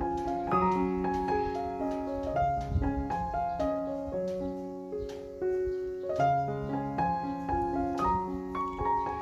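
Background piano music: a slow melody of struck, sustained notes over a steady bass line.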